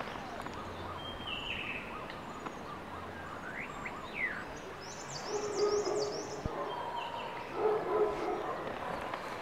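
Small birds chirping and calling over a steady outdoor hiss, with a quick run of high chirps about halfway through. Held lower tones come in over the second half.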